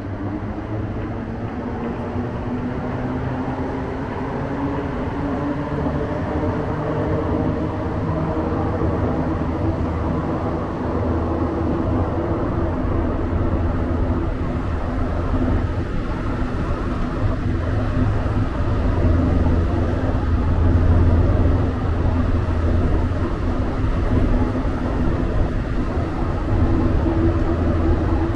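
Interior noise of a moving Montreal Metro Azur rubber-tyred train: a steady rumble of running gear with a motor hum that rises slowly in pitch over the first half, the whole growing louder toward the end.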